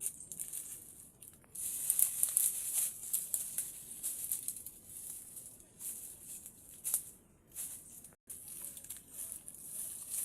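Insects buzzing in a high, hissing chorus that swells and fades in pulses, with faint crackles. The sound drops out completely for an instant about eight seconds in.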